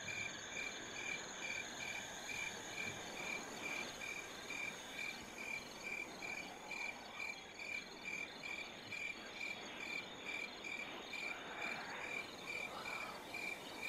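Crickets chirping steadily in the night background, an even high chirp repeating about twice a second over a fainter continuous high trill.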